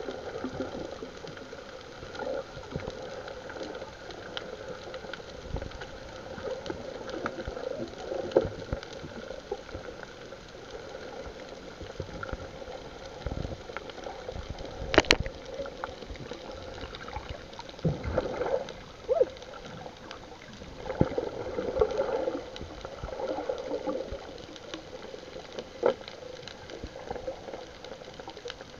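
Water sloshing and gurgling around a small fishing boat, with scattered knocks; the sharpest knock comes about halfway through.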